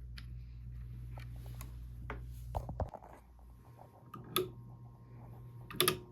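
Antique Robbins and Myers table fan's electric motor humming steadily amid scattered clicks and knocks. A few louder clicks come just before the hum cuts off suddenly about three seconds in.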